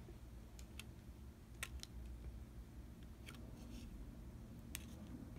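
Pokémon trading cards being handled on a tabletop: several light, irregular clicks and taps as cards are picked off a stack and set down on a pile.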